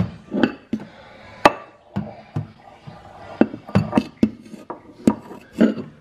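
Glass bowl being handled and set into a microwave oven: a series of irregular sharp clinks and knocks, about a dozen in all.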